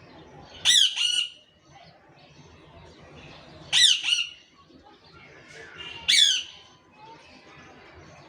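A parakeet giving three loud, harsh squawks about two and a half seconds apart, each a short falling cry in two parts.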